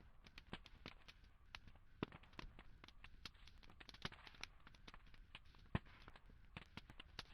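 Campfire crackling: faint, irregular sharp pops and snaps over a soft hiss, with a few louder pops about two, four and six seconds in.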